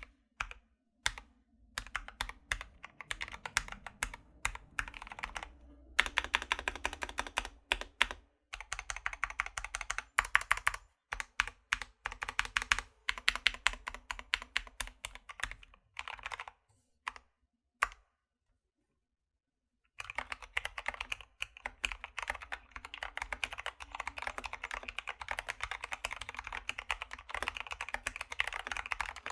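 Typing on a Keychron K2 V2 mechanical keyboard in an aluminium case with foam inside, fitted with lubed Gateron Brown tactile switches, clipped and lubed stabilizers and MT3 keycaps: rapid keystroke clicks in bursts with short pauses, a couple of seconds of complete silence about two-thirds through, then steady fast typing.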